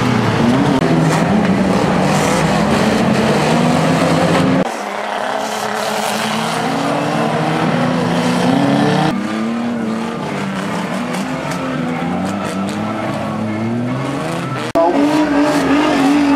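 Several banger racing cars' engines revving and running hard on a dirt track, their pitch rising and falling, with crunches of metal as the cars hit each other. The sound changes abruptly about 5, 9 and 15 seconds in.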